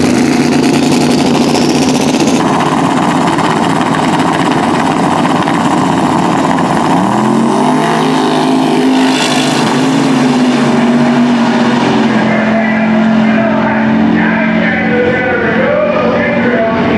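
Two drag-race cars, a twin-turbo LS V8 Chevy S-10 Blazer and a Fox-body Mustang, running side by side at full throttle down the strip. The engine note holds steady, then a second, climbing note joins about seven seconds in.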